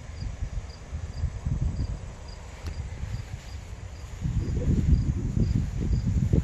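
A cricket chirping steadily, about two short high chirps a second, over a low rumble that grows louder about four seconds in.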